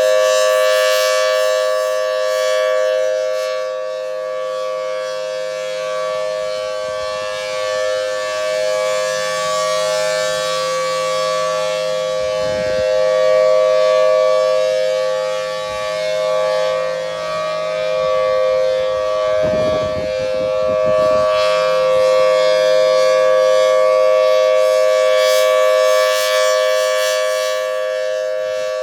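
Thunderbolt 1000T outdoor warning siren sounding the Alert signal: a steady, unchanging tone made of two close pitches heard together. It grows louder and fainter about every twelve seconds as the rotating siren head sweeps toward and away from the listener.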